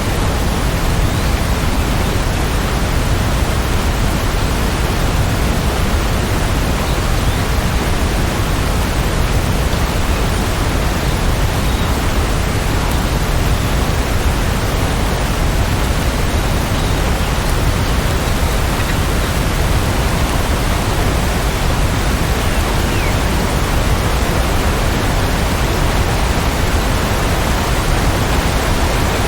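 Steady, even rain noise, an unbroken hiss with no distinct drops or thunder.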